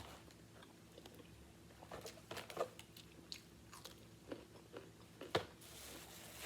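Close-miked chewing of a mouthful of sub sandwich: soft, irregular wet clicks and crunches, with one sharper crunch about five seconds in.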